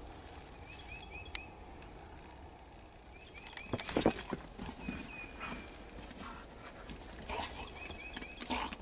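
Two dogs playing in snow: scuffling, with knocks and thuds from their paws and bodies, the loudest cluster about four seconds in.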